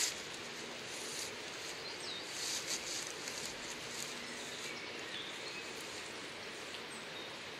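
Fresh willow rods rustling and scraping against upright willow stakes as they are woven through them. There is a sharp knock at the very start and a louder burst of rustling about two to three seconds in. Birds chirp faintly in the background.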